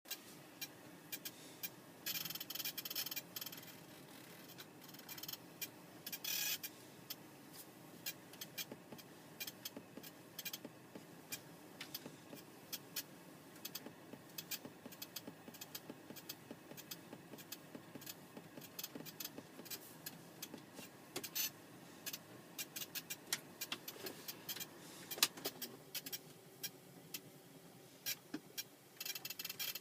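Dice Duo iPod interface ticking: a run of quick, uneven clicks, several a second, the fault the owner is showing. A short rushing hiss comes in about two seconds in and again around six seconds.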